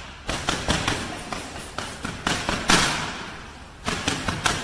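Boxing gloves striking focus mitts in fast punch combinations: about a dozen sharp slaps in quick runs, the loudest a little past halfway, each ringing on in an echoing hall.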